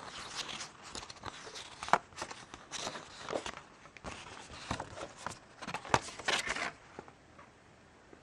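A folded paper leaflet rustling and crinkling as it is handled and turned over, with two sharper paper snaps, one about two seconds in and one about six seconds in. The rustling stops about seven seconds in.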